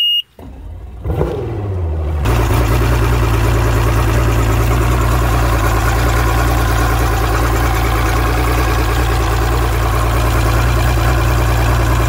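A short beep as the key is switched on. Then the 2011 Mercury Optimax Pro XS two-stroke direct-injection outboard cranks and catches about two seconds in, and idles steadily out of the water on flushing muffs.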